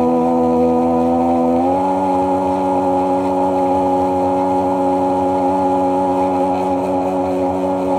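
Sea-Doo personal watercraft engine running at a steady cruising speed, its pitch stepping up slightly about a second and a half in as the throttle opens a little, then holding steady.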